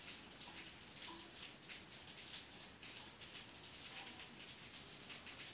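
Faint, irregular rustling and light scratching as hands pull thin polypropylene yarn and a sewing needle through crocheted cord.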